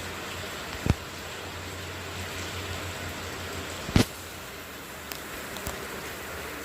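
Steady hiss of falling rain, with two sharp knocks, about a second in and about four seconds in, and a few faint ticks near the end.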